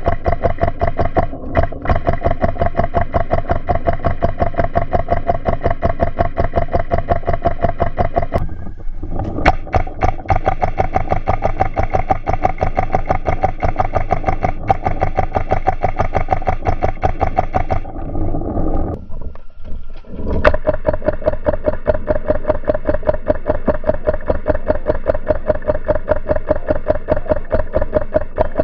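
Paintball markers firing in a rapid, even string of pops with a steady hum under it. The string breaks off and starts again about eight seconds in, and again around nineteen to twenty seconds in.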